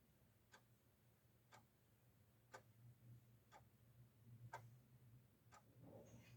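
A clock ticking faintly, one tick a second, over a faint steady low hum.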